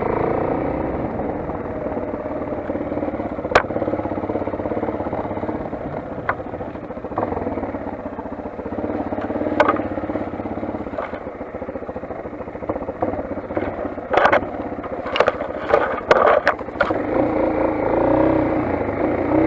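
Motoland XR 250 enduro motorcycle's single-cylinder engine running steadily, with scattered sharp knocks and clatter, several in quick succession about three quarters of the way through.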